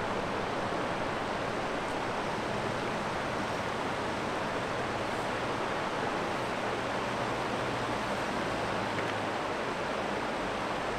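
Steady rush of river water flowing over a rocky riffle.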